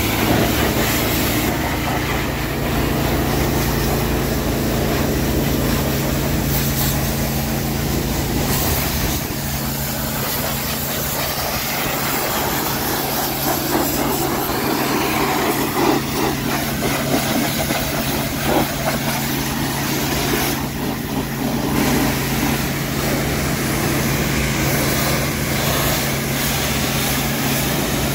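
Pressure washer spraying down a truck's engine bay and cab: the hiss of the water jet over a steady engine hum, the spray easing off briefly a few times.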